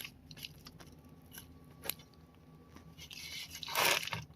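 Crunching and handling sounds from a potato shattered by airsoft BBs, a few small clicks, then a louder rustling crunch near the end before the sound cuts off abruptly.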